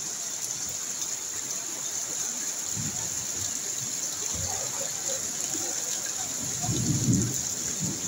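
Heavy rain pouring steadily onto a flooded street, an even hiss of falling rain and running water. Low rumbles come and go in the second half and are loudest about seven seconds in.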